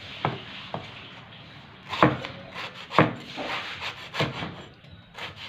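Large kitchen knife chopping red chillies on a thick round wooden chopping board. The blade strikes the wood one stroke at a time at uneven intervals, the two loudest about two and three seconds in, with scraping on the board between strokes.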